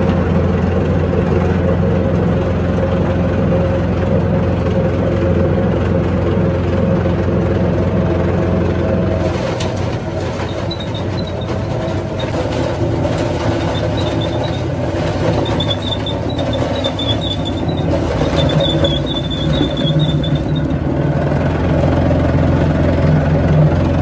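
Electric grinding mill running with a steady low hum while it grinds dry lumps into powder. A faint high squeak comes and goes through the middle.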